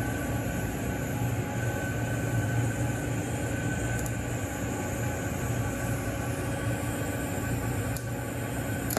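TIG welding arc on a 316L stainless steel pipe socket weld: a steady hiss with a low hum underneath, unbroken, as filler rod is fed into the joint.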